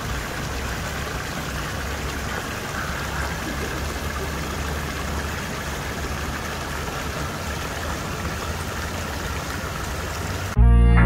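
Steady rushing of flowing water from a garden stream or waterfall, with a low rumble underneath. Near the end, loud electronic music cuts in suddenly.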